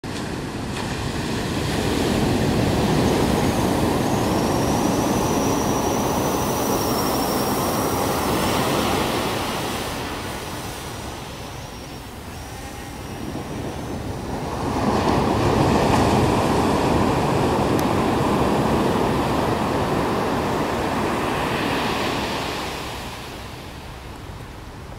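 Ocean surf breaking on a sandy beach, the wash swelling up and fading away twice. A faint, high, wavering whine sits over the first swell.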